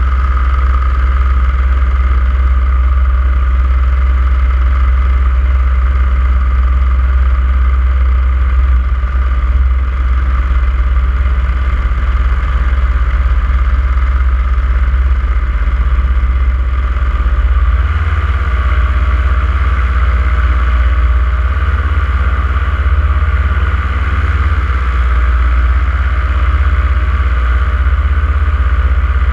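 Paramotor engine and propeller of a powered paraglider running steadily in flight under the pilot's throttle, with a shift in its tone about two thirds of the way through.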